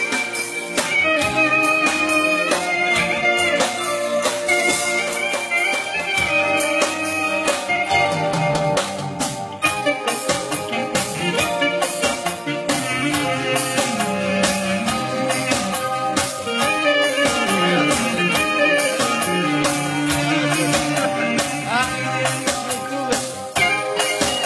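Clarinet playing a flowing melody over amplified backing with a steady drum beat.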